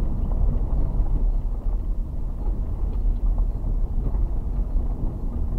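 Car driving slowly over a rough, bumpy dirt track, heard from inside the cabin: a steady low rumble of tyres and suspension with a few small knocks.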